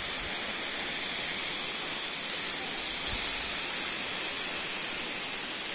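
Waterfall: falling water making a steady hiss that swells slightly about halfway through.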